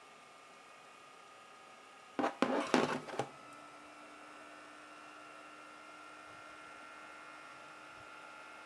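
Small electric fan motor of a neckband fan running with a faint steady whine. About two seconds in comes a quick run of sharp clicks and knocks lasting about a second, after which the whine steps slightly higher and a low hum joins it.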